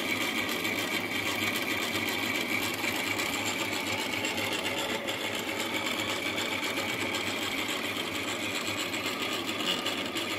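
Betar SGV-15 water meter whirring steadily with a high whine as water rushes through it to fill a water heater, its impeller spinning fast. The owner expects this new meter to fail soon because of the noise.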